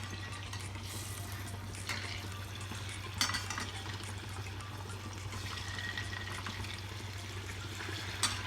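Bhujiya sev pakora balls frying in hot oil with a steady sizzle. A few sharp clinks of a utensil on the vessel come through, the loudest about three seconds in and near the end.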